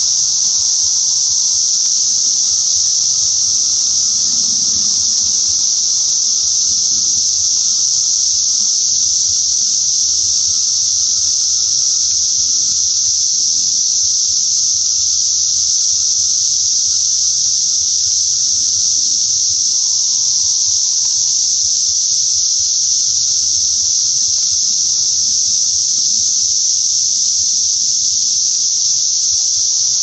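Loud chorus of Brood X periodical cicadas: a steady, high-pitched, unbroken drone from many insects calling at once in the treetops.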